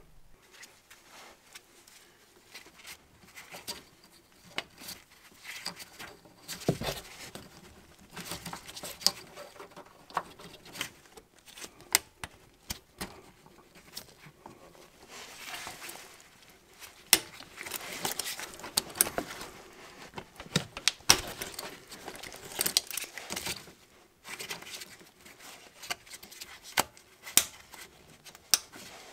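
Gloved hands working with pliers on a plastic hose clip and a connector: many scattered sharp clicks and snaps of plastic and metal, mixed with rustling.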